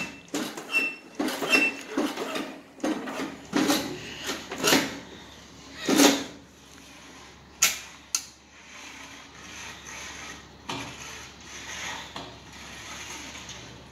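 A series of clunks and knocks from the controls on an old Ford riding tractor's dash being worked by hand, loudest over the first eight seconds, then a quieter stretch of small ticks.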